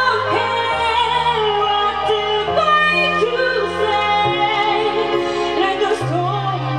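Female pop vocals sung live into microphones over a backing track, whose bass note changes about every two seconds.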